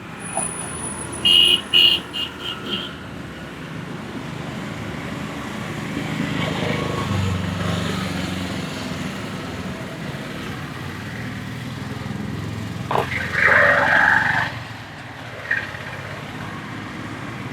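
Roadside traffic running steadily. About a second in, a horn gives a quick run of short beeps. A vehicle's engine rumble swells and fades in the middle, and a louder, pitched blare comes near the end.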